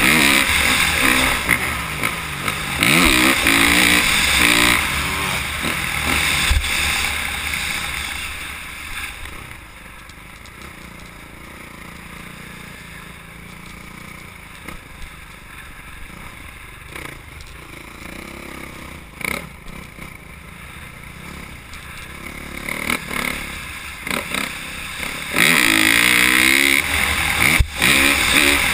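Motocross bike engine, heard from a camera on the bike, revving hard with the pitch climbing and falling through the gears. The engine drops to a much quieter, lower running through the middle, then revs up loudly again near the end.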